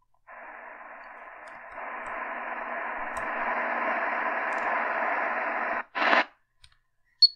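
Shortwave static hiss from a Realistic DX-380 radio's speaker, tuned between stations. The radio mutes while it steps frequency, so the hiss starts a moment in, grows louder, cuts off suddenly about six seconds in, comes back for a short burst, and is followed by one short high-pitched blip near the end.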